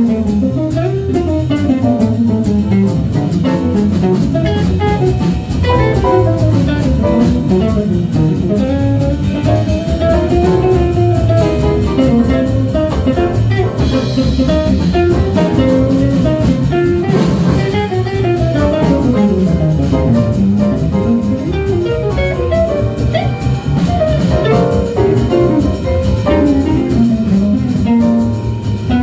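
Live jazz band playing, with a guitar taking a single-note solo whose line keeps rising and falling, over bass and a drum kit.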